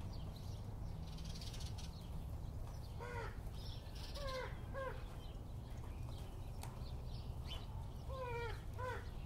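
Short, clear-pitched bird calls, each arching up and down in pitch, come in pairs and short runs about three seconds in, around four and a half seconds in, and again several times near the end, over a steady low rumble.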